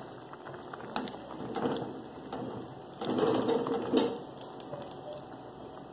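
Beef and tomato stew bubbling at a boil in a large frying pan, with a spatula stirring and scraping through it in two stretches, about one and a half and three seconds in.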